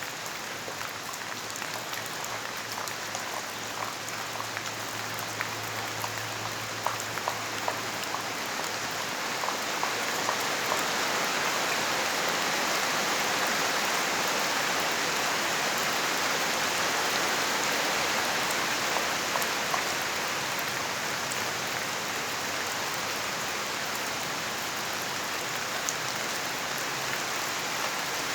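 Steady rain falling, with scattered individual drops ticking through the hiss. It grows a little heavier about a third of the way in and then holds steady.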